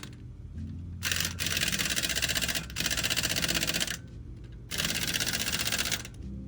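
Pneumatic tool rattling in bursts of one to two seconds, with short pauses between, over a low steady hum.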